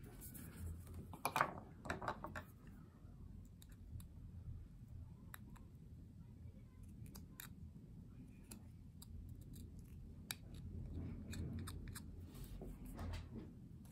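Small carving gouge slicing and scraping into a small block of wood as nostrils are cut into a carved nose: scattered crisp cutting clicks, loudest about one to two seconds in, over a faint low rumble.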